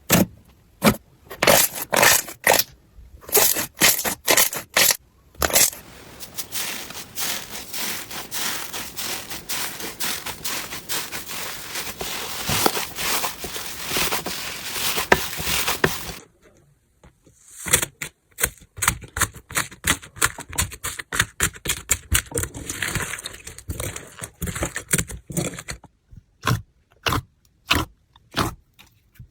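Slime being handled, making sharp crackling pops. There are separate pops at first, then about ten seconds of dense crackling, a short break, and more pops.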